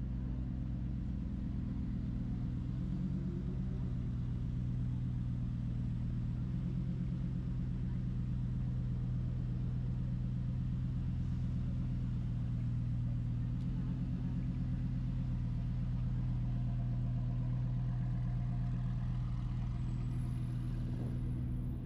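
Street ambience dominated by a steady low engine-like hum from idling or slow vehicles, unchanging throughout.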